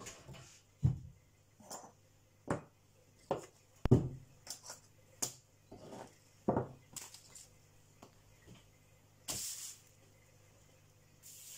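Hand tools (pliers, nippers, a utility knife, an awl, a wire spool) set down one after another on a leather apron over a wooden table: a string of separate knocks and clacks. A short rustle follows after a quiet stretch.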